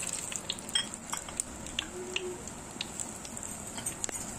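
Whole spices (bay leaves, cinnamon, cardamom) sizzling in hot oil in a clay pot: a steady hiss with scattered sharp crackles and pops.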